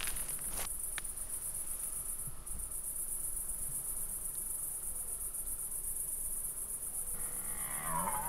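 Crickets chirping in a steady high-pitched trill. Near the end a red deer stag's rutting roar begins, a call falling in pitch.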